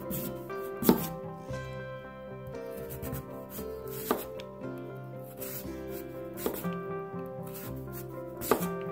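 Background instrumental music with four sharp, separate knocks spaced unevenly through it.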